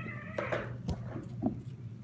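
A cat meows once, a short call, followed by a light click and a soft knock.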